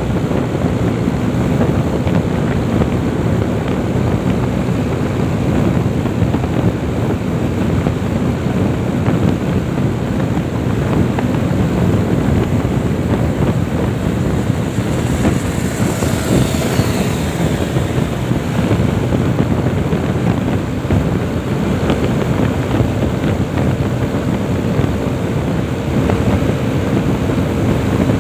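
Heavy wind rushing over the microphone of a motorcycle ridden at highway speed, with the bike's engine and road noise running steadily underneath. A faint high whine falls in pitch about halfway through.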